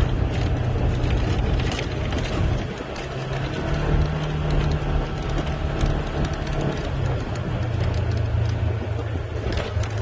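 Vehicle engine running while driving over rough ground, its pitch rising about three and a half seconds in and dropping again about seven seconds in, with knocks and rattles throughout.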